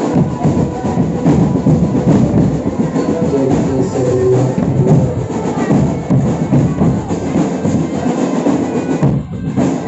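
Marching drum band playing a fast, dense rhythm: bass drums and snare drums beaten together, with a short break near the end.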